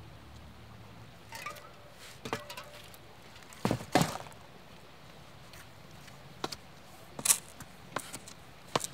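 A handful of scattered sharp knocks and clicks, about seven in all, the loudest about four seconds in, over a quiet background.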